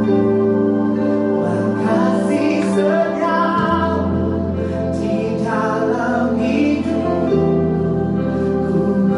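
Slow worship music: held keyboard chords with singing over them.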